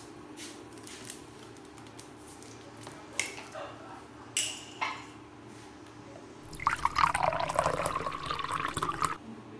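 A few light clicks and taps, then liquid pouring or running for about two and a half seconds before stopping abruptly. A faint steady hum sits underneath.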